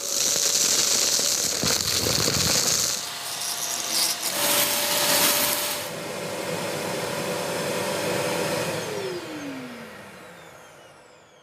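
Wet-and-dry vacuum cleaner motor running: a steady tone over rushing air that shifts in pitch a couple of times. About nine seconds in it is switched off and winds down in a falling tone until it fades away.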